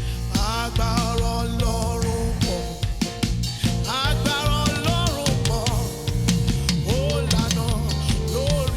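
Worship band music with a drum kit and bass playing steadily under a gliding melodic lead line.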